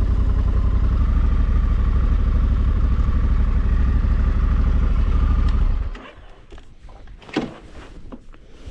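Honda Africa Twin 1100's parallel-twin engine running steadily, then cut off abruptly about six seconds in as the engine is switched off. A few faint clicks and one sharper knock follow in the quiet.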